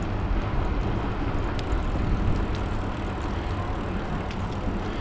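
Wind rushing over the microphone and tyres rolling while riding a bicycle: a steady low rumble.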